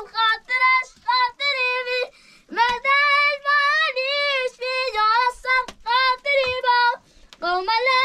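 A child singing a melody unaccompanied in a high voice, in short held phrases broken by brief pauses.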